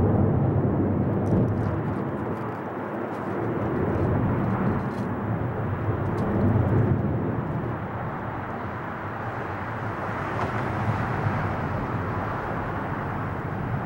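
Boeing 747-400 airliner's four jet engines at climb power just after takeoff: a deep, steady rumble that slowly fades as the jet climbs away.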